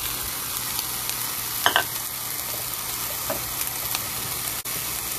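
Leftover steamed rice, canned peas and carrots and scrambled egg sizzling steadily in oil in a frying pan, with a short sharp click about a second and a half in.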